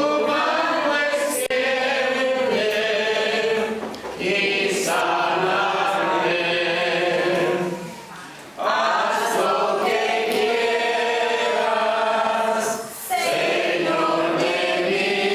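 A congregation singing a hymn together, in long sung phrases with brief pauses for breath about every four seconds.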